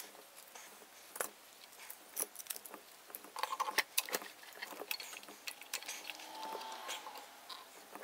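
Scattered light metallic clicks and taps of a small steel bar clamp being handled, slid into place and tightened across a glued split in an oak chair part.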